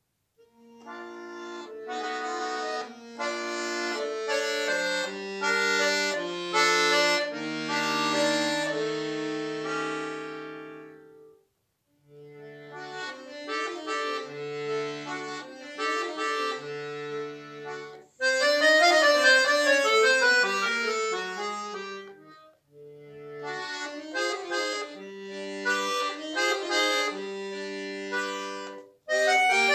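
Solo button accordion playing a classical piece: phrases of held chords over a bass line, broken by brief pauses, with a louder passage of fast running notes about two-thirds of the way in.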